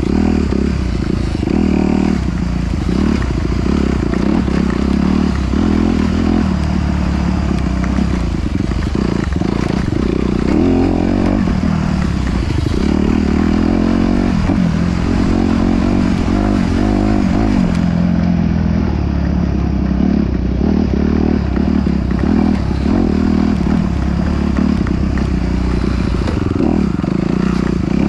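Off-road vehicle engine running continuously while being driven over rough ground, the throttle rising and falling every second or so, with rattling and scraping from the terrain.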